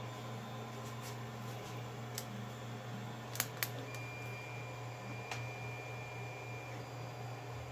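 Steady hum of 3D printers running, with a few light clicks, two of them close together about three and a half seconds in, and a thin high whine from about four seconds in until shortly before the end.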